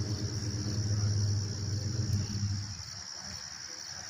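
Steady high chirring of insects, over a low motor hum that stops a little under three seconds in.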